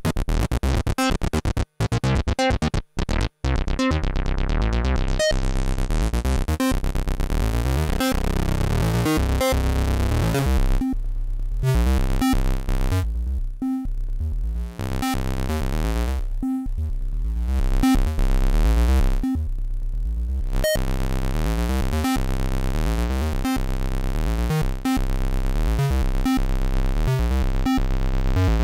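Dreadbox Typhon monophonic analog synthesizer playing a repeating sequenced pattern of short notes. It cuts out briefly a few times in the first seconds, and in the middle its bright upper tones repeatedly fall away and return, as a filter closes and reopens.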